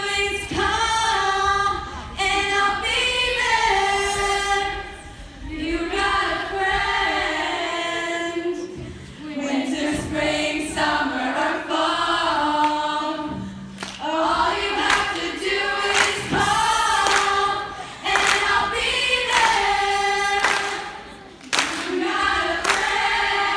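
A group of voices singing a song together, in phrases with short breaks between them.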